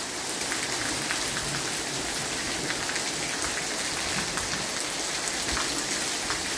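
Heavy rain falling steadily on a concrete yard and flat roofs: a dense, even hiss with scattered ticks of single drops.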